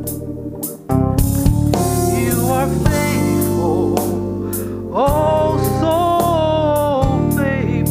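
A woman singing a gospel solo into a microphone over instrumental accompaniment with drums, holding a long wavering note about five seconds in.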